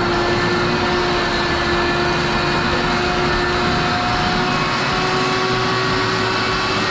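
Wet-dry vacuum motor running steadily with a constant whine, sucking standing wastewater out of a blocked drain. It cuts off abruptly at the very end.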